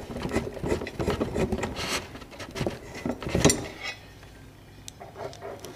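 Screws being worked out of a Harbor Breeze ceiling fan canopy's mounting bracket by hand and screwdriver: a busy run of small clicks, taps and scrapes, sharpest about three and a half seconds in, then only a few faint clicks.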